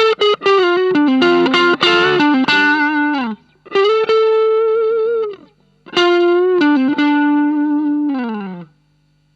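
Electric guitar, a Fender Stratocaster, played through an Ibanez Tube Screamer Mini overdrive pedal into a Marshall MG15 amp, giving a distorted lead tone. It plays a run of quick notes, then a held note with vibrato, then another phrase, with phrases ending in a downward slide. The playing stops near the end, leaving a low amp hum.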